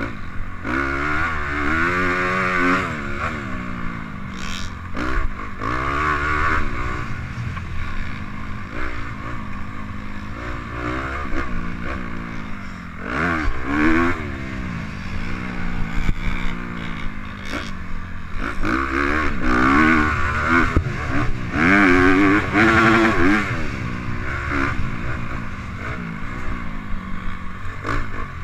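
Dirt bike engine racing around a motocross track, revving up through the gears in repeated rising climbs and backing off between them. The hardest acceleration comes near the start, about halfway through and again about two-thirds of the way in.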